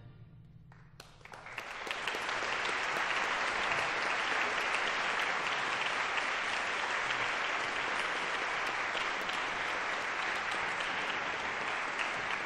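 After a brief hush at the close of an orchestral piece, audience applause breaks out about a second in and goes on steadily.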